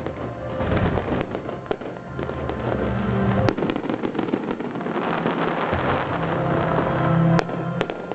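Fireworks crackling and popping in rapid, irregular bursts with a few sharper bangs, over music with sustained tones.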